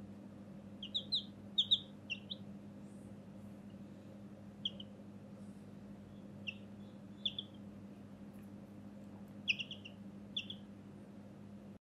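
Baby chicken chick giving short, high peeps in small clusters of two or three, scattered through, over a faint steady low hum.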